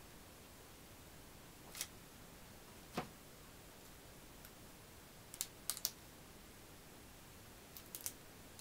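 Faint, scattered clicks and crinkles of scissors and paper being handled: single snips or snaps about two and three seconds in, the second the loudest, then quick clusters of three clicks around five and a half and eight seconds, over a steady low hiss.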